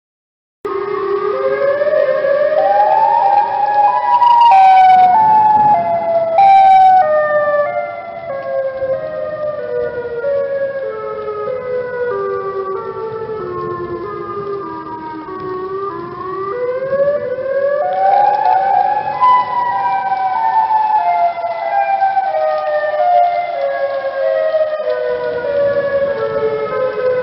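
Outdoor tornado warning siren sounding its wail. It starts about half a second in, glides up in pitch over a few seconds, sinks slowly for about twelve seconds, then winds up again and falls once more. Two brief loud bursts break in about four and six seconds in.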